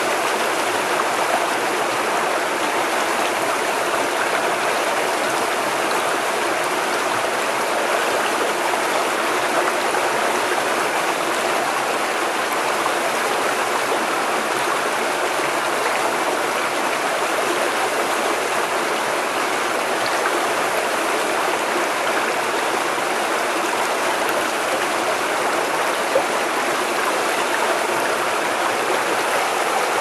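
Small rocky stream rushing and splashing over stones in a little cascade, a steady even rush of water.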